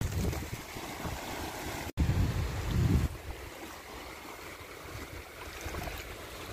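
Wind buffeting the microphone over the faint wash of shallow sea water lapping on sand, with stronger gusts at the start and from about two to three seconds in. The sound cuts out for an instant just before the second gust.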